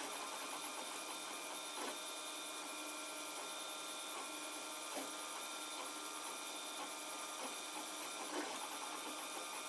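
Protomaker Black Sprint 3D printer's stepper motors whining steadily as it prints, with a few faint ticks from the moving carriage.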